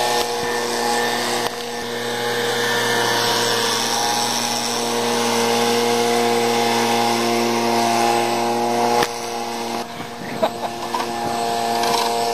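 Handheld two-stroke leaf blower engine running steadily. In the last few seconds, a hand tool scrapes and knocks on the road surface.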